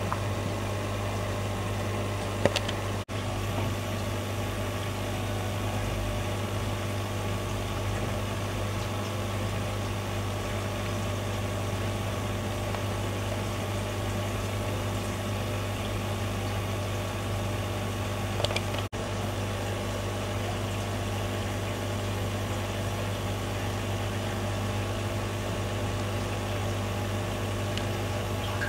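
Steady low machine hum, with two short sharp clicks, one about two seconds in and one near eighteen seconds in.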